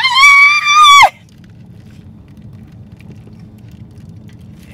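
A woman's excited high-pitched scream, rising sharply and held for about a second before breaking off, then a low steady hum inside the car cabin.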